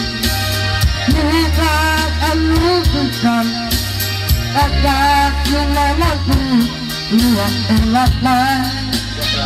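A man singing with a wavering, vibrato-laden voice into a microphone, over amplified backing music with a steady bass line.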